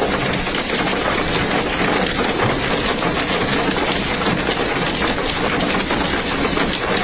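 Torrential wind-driven rain in a severe storm: a steady, dense hiss full of fine ticking impacts, with wind rumbling on the microphone.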